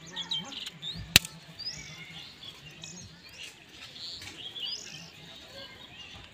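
Small birds chirping, short high chirps repeating about once a second, with a single sharp click about a second in.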